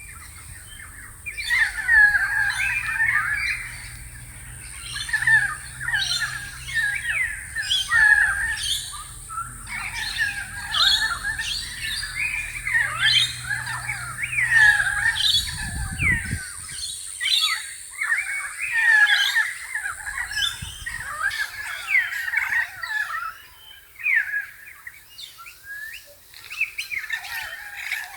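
Several wild birds calling and chirping at once, a dense chorus of short, mostly downward-sweeping calls. A faint low hum stops about halfway through, and a steady thin high whine stops about three-quarters of the way in.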